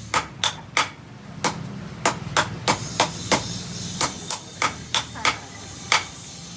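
A hand hammer striking steel on an anvil during knife forging: about fifteen sharp, ringing blows in uneven runs of roughly three a second. A steady low hum runs underneath.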